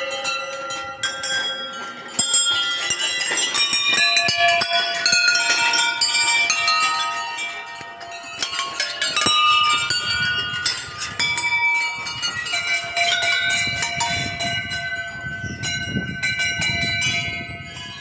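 Many metal temple bells struck over and over at once, their ringing tones of different pitches overlapping into a continuous clangour.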